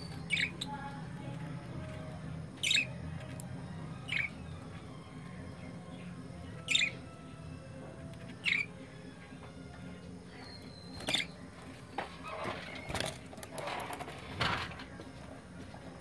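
Budgerigars giving short, sharp chirps every second or two, with a busier run of calls near the end, over a steady low hum.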